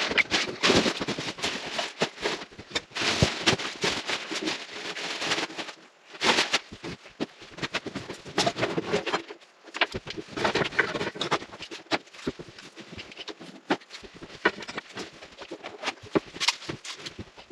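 Rapid, irregular clattering and knocking of tools, scraps and materials being picked up and moved during a worksite cleanup.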